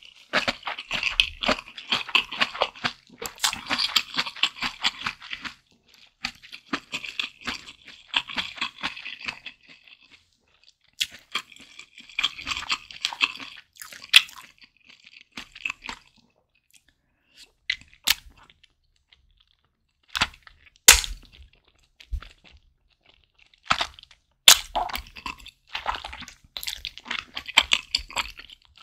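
Close-miked chewing of malatang: dense runs of small clicking mouth sounds in several stretches, with pauses and a few single sharp clicks in between.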